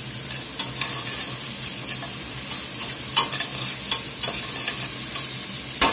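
Diced carrots, mushrooms and shallots sautéing in oil and butter in a stainless steel stockpot, sizzling steadily as they are stirred with a spatula. A few light knocks of the spatula against the pot, two of them close together near the end.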